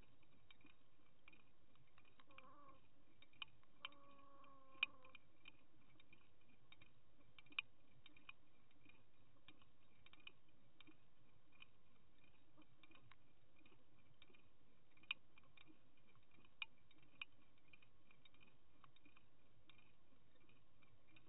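Faint underwater sound of a camera towed on a trolling line: a low steady hiss with scattered sharp clicks, as of the swivels and terminal tackle knocking. A short wavering whine sounds twice in the first five seconds.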